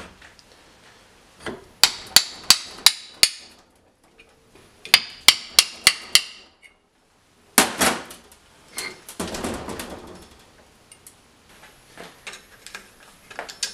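Hammer blows on the steel of a rear differential while its flanges are being removed, ringing metallically. There are two quick runs of five strikes each, about three a second, with a short pause between them. A few more blows follow, then a scraping rattle of metal and some light clicks near the end.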